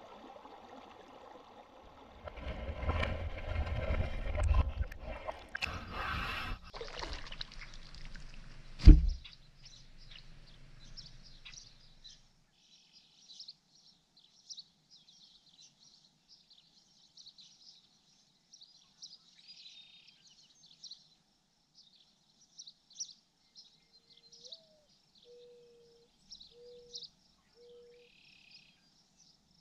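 Underwater sound picked up by an action camera in its waterproof housing: muffled rumbling and sloshing of moving water, with one loud, sharp thud about nine seconds in. After that the sound turns faint, with short high chirps of insects or birds repeating and a few short low notes near the end.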